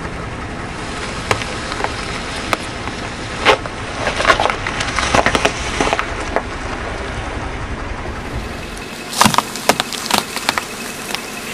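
A car's tyre rolling over and crushing brittle objects, giving scattered sharp cracks and crunches over the car's low rumble. The rumble stops about nine seconds in, followed by a quick run of sharp cracks.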